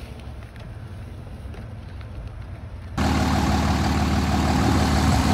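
Dodge Cummins diesel engine idling steadily. It is a low hum at first, and about three seconds in it jumps to a much louder running sound with a hiss.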